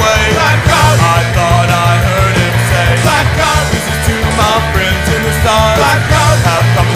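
Loud punk rock music with a singing voice.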